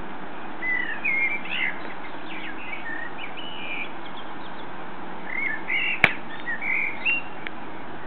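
Common blackbird singing two short phrases, one about half a second in and another about five seconds in, over a steady background hiss. A single sharp click, the loudest sound, falls in the middle of the second phrase.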